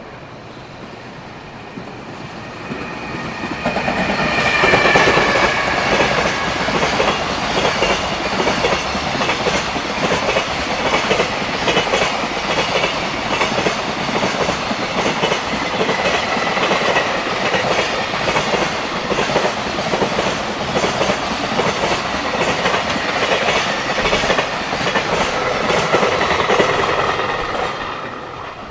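A freight train passes at speed. A falling whine comes as the locomotive goes by, then the wagon wheels clatter in a steady clickety-clack over the rail joints for about twenty seconds, and the sound fades near the end.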